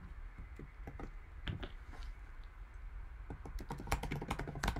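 Typing on a computer keyboard: scattered keystrokes, quickening into a fast run of clicks near the end.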